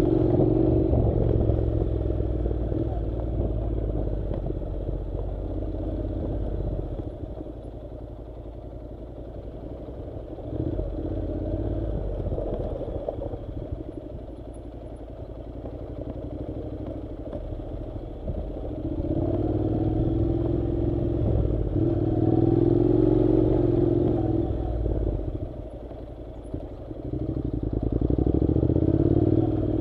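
Honda NC700 motorcycle's parallel-twin engine running under way. It pulls louder under throttle and drops back when eased off, several times over.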